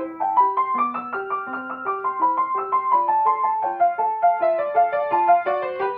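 Upright piano played solo in a classical style: a quick, flowing melodic line over a middle note struck again and again.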